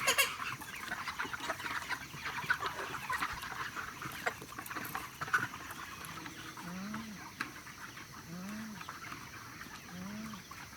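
A flock of chickens clucking and chattering in their mobile chicken houses. From about two-thirds through, a low call rising and falling in pitch repeats about every second and a half.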